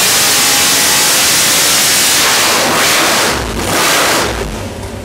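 Carbureted 454 LSX V8 on an engine dyno, run hard: a loud, even roar heavy in hiss. It eases about two and a half seconds in, swells again briefly, then drops back toward an idle rumble near the end.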